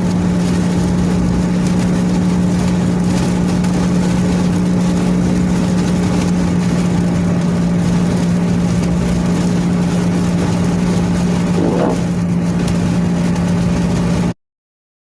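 Car driving on the road, heard from inside the cabin: steady engine and road noise with a constant low hum, cutting off suddenly near the end.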